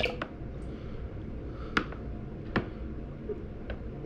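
About five short, sharp clicks and light taps, two close together at the start and then one every second or so, as a soft plastic lizard lure on fishing line is handled at a plastic tub of water, over a faint low room hum.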